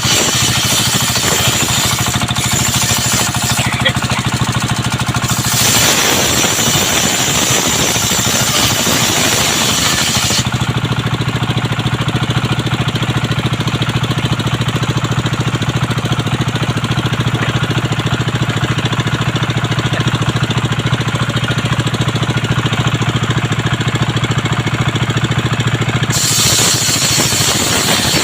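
Serkel circular sawmill running steadily with its engine going, a low hum with a hissing, knocking rattle. About ten seconds in the hiss thins out and the hum grows stronger, and near the end the hiss comes back.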